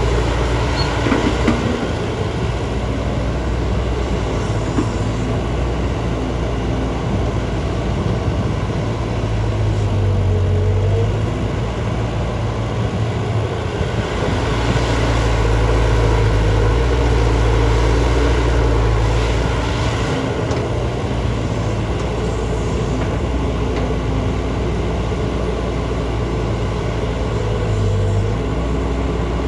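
JCB JS205 tracked excavator's diesel engine running steadily while digging, its note rising and easing several times as the hydraulics take load.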